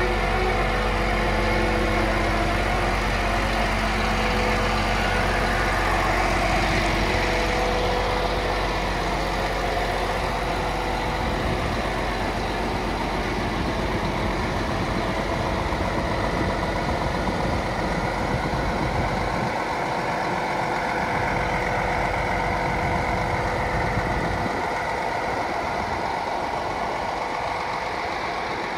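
Scania P400 truck's six-cylinder diesel engine running steadily at low revs as the heavy six-axle truck creeps along.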